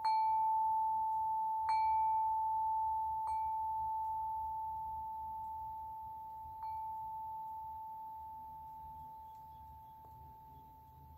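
A chime ringing one clear note, struck four times in the first seven seconds and slowly fading after each strike.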